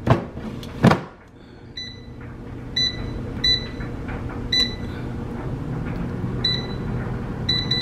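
Emeril Lagasse air fryer's touch control panel beeping as its buttons are pressed to set the temperature and time: about six or seven short beeps at irregular intervals, over the steady low hum of the fryer's fan. Two brief knocks come in the first second.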